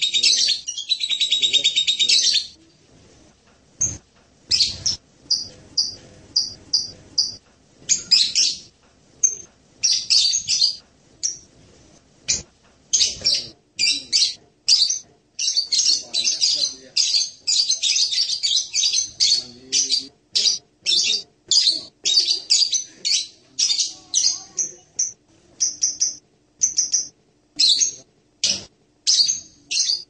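Blue-crowned hanging parrot (Loriculus) calling: a dense, buzzy high trill at the start, then a long run of short, high-pitched chirps and twitters that come thick and fast past the middle and thin out near the end.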